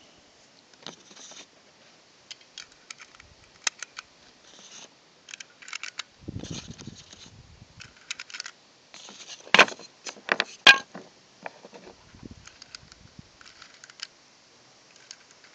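9mm cartridges being pushed one by one into a 1911-style pistol magazine: irregular metallic clicks and small rattles, the loudest two close together past the middle, with a rag rustling in the first couple of seconds.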